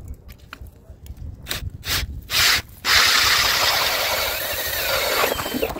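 Cordless drill driving a steel ice auger into lake ice: a few short bursts as the blades start to bite, then a steady loud grinding as it cuts through. The motor winds down with a falling pitch near the end.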